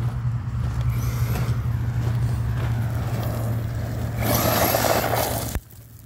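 Arrma Kraton EXB 1/8-scale RC truck running on 8S at half power over loose gravel: a steady low rumble, then a loud rush of tyres and gravel for about a second and a half near the end that cuts off suddenly.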